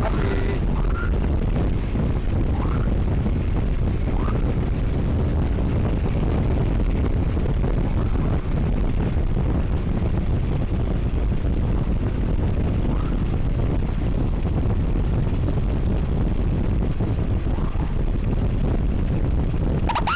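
Steady wind rush buffeting the camera's microphone while riding a scooter at speed, the engine and road noise running under it. A few faint, short rising tones come through it now and then.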